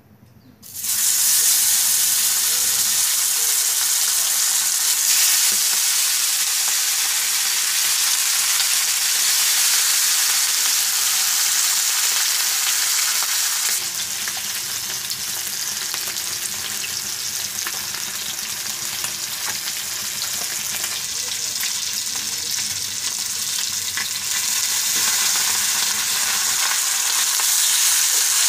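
Paniakhia fish sizzling as they fry in hot oil in a kadhai. The frying starts suddenly about a second in, as the fish go into the oil, then keeps up a steady dense hiss that dips a little about halfway and grows again near the end.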